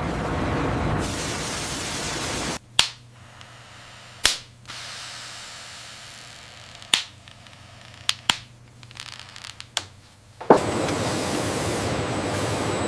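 Steady factory machinery noise that cuts off suddenly, leaving a faint hum with about six sharp knocks or clacks spread over several seconds, before the machinery noise starts up again.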